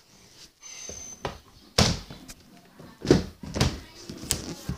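A few dull knocks and thuds, like a cabinet door being shut and things being handled; four short knocks, the loudest about three seconds in.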